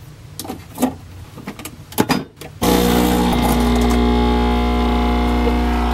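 Nespresso capsule coffee machine: a few clicks and clunks as the capsule goes in and the lever is closed. About two and a half seconds in, the machine's vibratory pump starts suddenly with a loud, steady buzz as it begins brewing.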